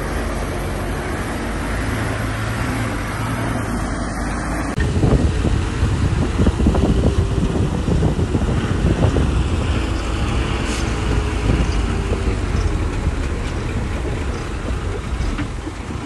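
Heavy earthmoving machinery running, an engine's steady rumble; about five seconds in the sound changes abruptly to a louder, uneven rumble with scattered knocks and clatter.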